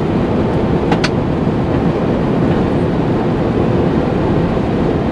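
Inside a truck cab while driving: the engine and road noise run steadily, with one brief click about a second in.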